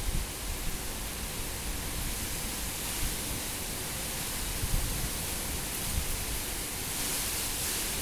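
Tropical cyclone winds rushing and gusting in a continuous loud hiss, with low rumbling buffets. The wind swells about three seconds in and again near the end.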